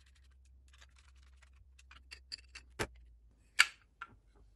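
Light clicking and ticking of a small hand screwdriver turning the last bolts that mount a stepper motor to a 3D-printed plastic module. A sharp click comes just before three seconds in, then a louder clack about half a second later as the plastic module and tools are handled.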